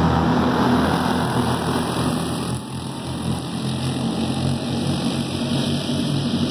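Small engines of a pack of racing go-karts running together on a dirt oval, a steady droning blend of many engines. It dips a little about two and a half seconds in, then swells again.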